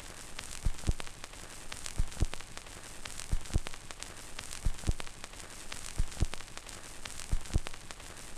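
Faint vinyl record surface noise after the music ends: steady hiss with a pair of clicks repeating about every 1.3 seconds, the once-a-turn rhythm of a 45 rpm disc spinning in its run-out groove.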